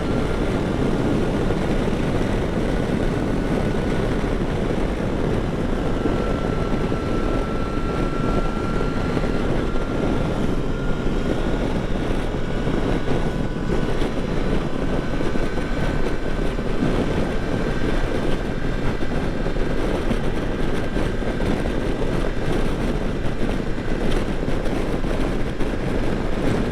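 2022 Triumph Tiger Sport 660 motorcycle under way at speed: steady wind rush and engine noise, with a thin whine that climbs slowly in pitch.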